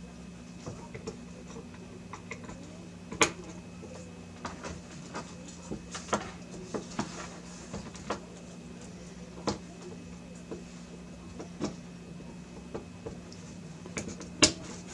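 Wire connectors being handled and plugged into a breakout board: scattered light clicks and taps, the sharpest about three seconds in and near the end, over a steady low hum.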